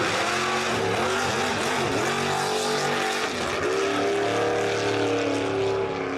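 Drag-racing mini pickup truck's engine accelerating hard off the line in a wheelstand. The pitch climbs and drops back a couple of times, as at gear changes.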